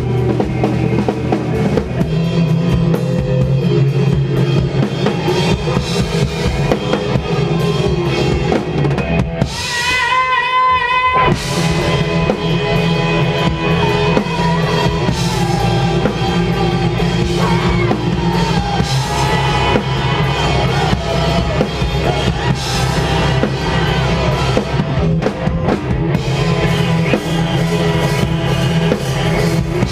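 Post-hardcore band playing live: a drum kit with kick and snare driving under guitars and bass. A little under ten seconds in the band drops out for about a second and a half, leaving one wavering high melodic line, then the full band comes back in.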